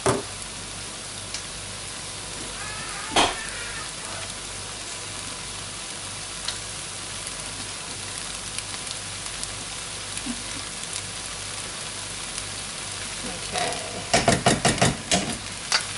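Rice and vegetable mixture sizzling steadily in coconut oil in a frying pan on high heat. A single knock comes about three seconds in, and near the end a quick run of utensil scrapes and clatters as the mixture is stirred.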